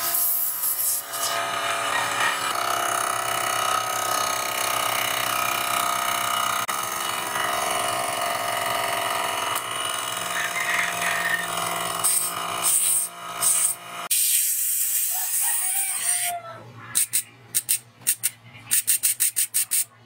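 A 12-volt tire-inflator air compressor running steadily with a motor whine. It stops about 14 seconds in, leaving a high hiss, and a rapid string of short sharp bursts follows near the end.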